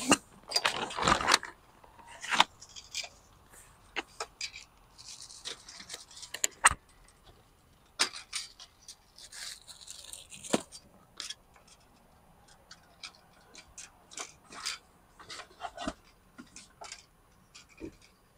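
A reach-and-grab tool rummaging through trash: irregular clicks and knocks of its claw with scraping and rustling of plastic bags and cardboard boxes.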